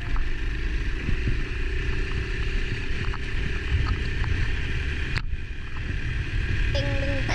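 Honda dirt bike's engine running and wind buffeting the helmet/handlebar camera microphone as it rides along a gravel road, a steady rumbling rush, broken by a brief dropout about five seconds in.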